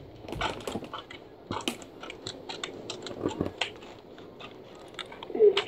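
Scissors snipping, a quick irregular run of small clicks.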